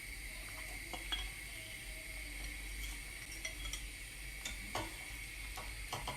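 A utensil stirring a mixture of batter and milk in a saucepan on the stove as it heats and thickens, with a few light clicks against the pan over a steady faint hiss.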